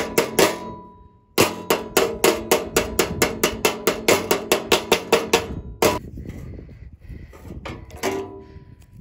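Rapid, even metallic tapping, about five strikes a second, each with a short ringing tone. It pauses briefly near one second, resumes abruptly, and ends in a louder knock just before six seconds, then only a few scattered clicks.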